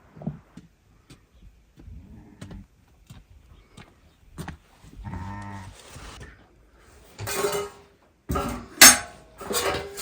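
A farm animal calls once, a drawn-out pitched cry about halfway through. It is followed by several loud, rough, noisy bursts near the end, with small scattered knocks earlier.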